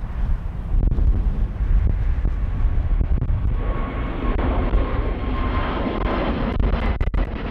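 Jet engines of an Airbus A350, Rolls-Royce Trent XWBs, running over a heavy low rumble. The engine noise swells about halfway through, with a steady whine riding on top.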